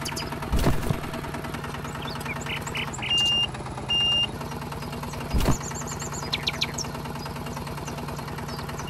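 Tractor engine running steadily with an even, rapid putter, with two short horn beeps about three and four seconds in. Two dull thumps, about half a second in and again past five seconds, and a few faint bird chirps later.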